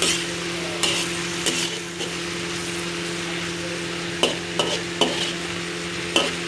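Chicken and vegetables sizzling as they are stir-fried in a pan. A spatula knocks against the pan several times, over a steady low hum.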